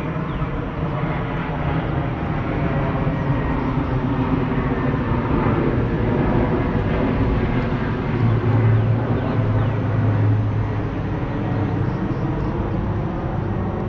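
Drone of a passing engine over steady outdoor background noise, building to its loudest about eight to ten seconds in and then easing off.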